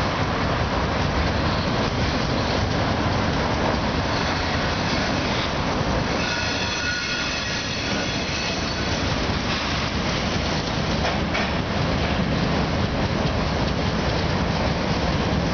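Freight train cars rolling past close by: a steady rumble of steel wheels on the rails, with a high wheel squeal ringing for about two seconds near the middle.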